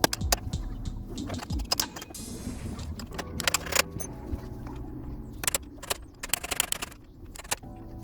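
Background music with irregular metallic clicks and clinks of hand tools over it.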